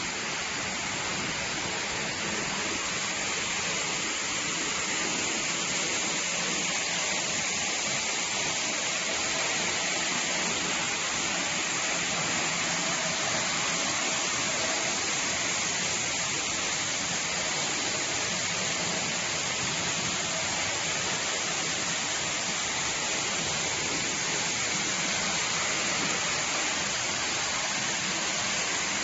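Wood pellet production line machinery running, giving a steady, even hiss like rushing air or water, with no distinct knocks or tones.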